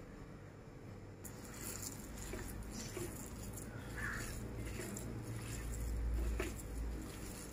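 A hand kneading and squeezing a soft chicken, potato and crumb mixture in a glass bowl: faint rustling and squishing.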